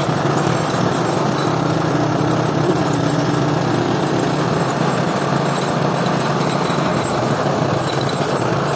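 Small engine of a vehicle running steadily as it travels along a wet, muddy dirt track.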